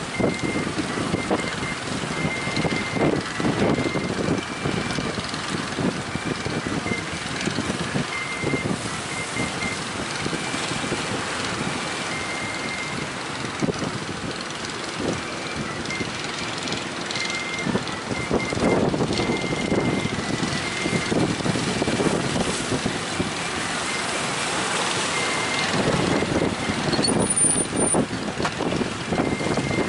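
Strong wind buffeting the microphone over breaking surf, swelling in gusts, with a faint high beeping tone that comes and goes in short runs.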